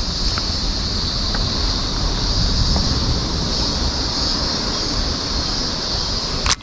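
Steady outdoor ambience: wind rumbling on the microphone under a constant high hiss, with a sharp click near the end.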